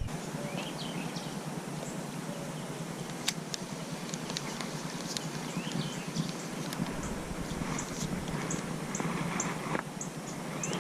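Steady outdoor background noise with scattered short bird chirps, and a quick run of high ticks about two a second in the last few seconds.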